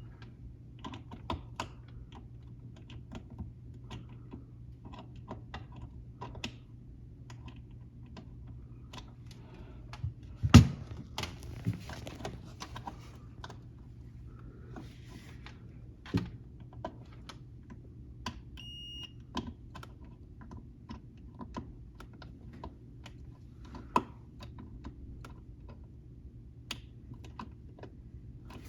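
Light scattered clicking and tapping from hands and meter probes handling plastic parts in a refrigerator's freezer compartment while the defrost sensor and heater are checked, with one loud knock about ten seconds in. A short high beep sounds a little past halfway, over a steady low hum.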